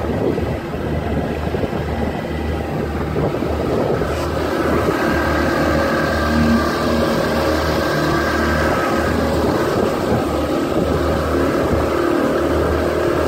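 A small fishing boat's engine running steadily while underway, with water rushing and splashing along the hull.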